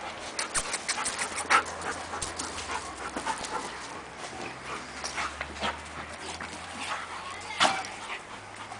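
Central Asian shepherd dogs wrestling, with panting and scattered short scuffling clicks. One louder, sharp sound comes about seven and a half seconds in.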